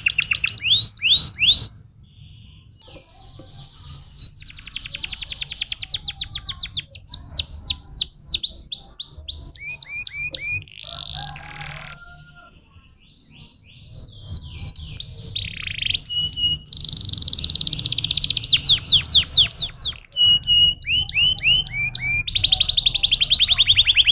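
Domestic canary singing in phrases of fast trills and rolls: rapid strings of repeated notes sweeping downward, with a few short pauses between phrases.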